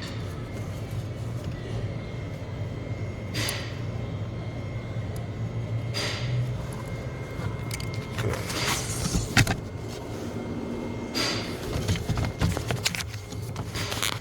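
Hands fiddling a cotter pin into a blower motor wiring connector to back-probe it: scattered rustles and small clicks, busiest about two-thirds of the way through, over a steady low hum.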